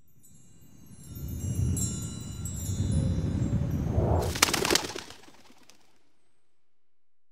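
Logo-sting sound effect: a low rumble swells from about a second in, with high, thin chime-like tones ringing above it. Around four and a half seconds in comes a quick flurry of sharp clicks, and then it fades out.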